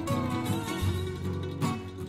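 Background music with quick plucked string notes, guitar-like.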